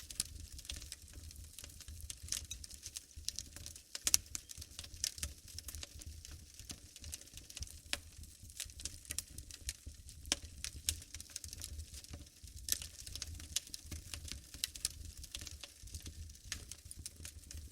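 Wood fire burning in a fireplace: irregular sharp crackles and pops over a low rumble of flame, with one louder pop about four seconds in.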